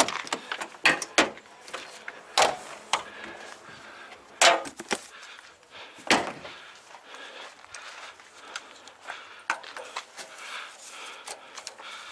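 Irregular sharp clicks and knocks, a dozen or so, with the loudest about two and a half, four and a half and six seconds in, and faint rustling between them.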